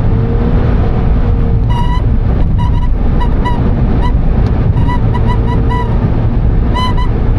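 Short, high-pitched 'kii, kii' squeaks inside the cabin of a first-generation Honda N-BOX Custom on the move, over loud steady road and engine noise. The squeaks start about two seconds in and repeat irregularly, coming in quicker runs near the end.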